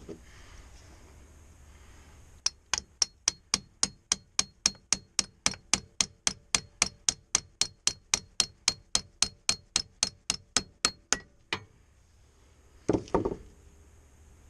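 Hammer striking metal in a fast, even rhythm of about four ringing blows a second, driving a bearing or bushing in the KDX200's swingarm; the blows stop abruptly, followed by a short clatter near the end.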